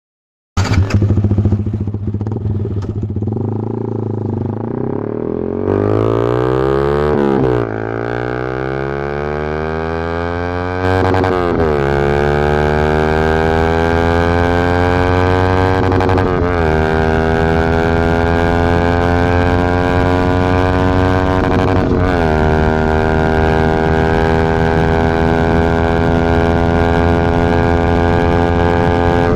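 Yamaha MT-15's single-cylinder engine through a full-system aftermarket exhaust, starting abruptly and accelerating up through the gears. The exhaust note climbs in pitch, then drops sharply at each upshift, four times, with each gear held longer than the last.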